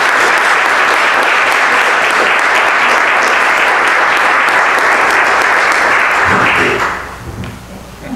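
A group of people applauding, a steady round of clapping that dies away about seven seconds in.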